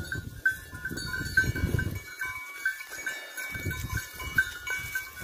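Bells on a grazing flock of sheep clinking and ringing irregularly, many small strikes overlapping, with low rumbling noise that comes and goes underneath.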